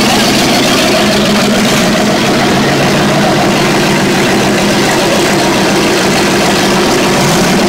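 Engines of several demolition derby cars running at low speed as they roll slowly past, loud and steady throughout.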